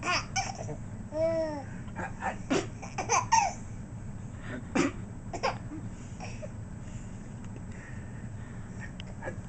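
Six-month-old baby laughing in short bursts and squeals, with a few sharp breathy outbursts over the first five seconds or so, then quieter.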